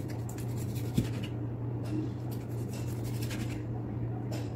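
A cleaver slicing through fatty pork on a plastic cutting board: a run of short scraping cuts, with one heavier knock of the blade on the board about a second in. A steady low hum runs underneath.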